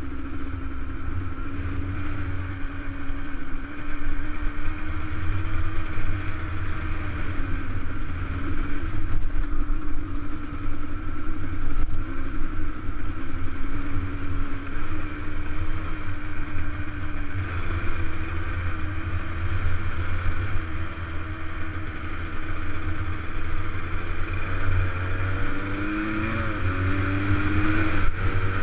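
Dirt bike engine running at a steady cruise along a gravel track, its pitch wavering slightly with the throttle, with a brief rise in revs near the end. A constant low rumble of wind on the helmet-mounted microphone runs under it.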